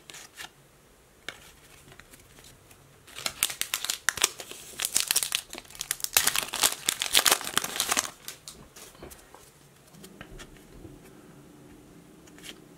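The foil wrapper of a 2020-21 Upper Deck Series 2 hockey card pack being torn open and crinkled: a loud burst of crackling that starts about three seconds in and lasts about five seconds. Light clicks of cards being handled come before it.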